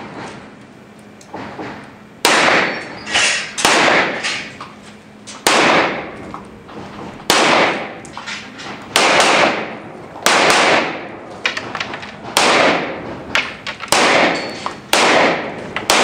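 Pistol shots fired in a rapid string, often in quick pairs, starting about two seconds in and continuing at uneven intervals, each crack echoing through a large indoor hall.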